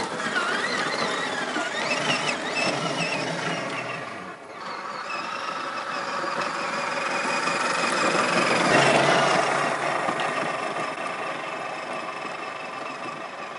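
Electric motor and gear whine of a 1/10-scale RC crawler on an Element Enduro Trailwalker chassis driving on a dirt trail. The whine wavers in pitch with the throttle for the first few seconds and dips briefly. It then runs steadily, grows loudest about nine seconds in and fades as the truck drives away.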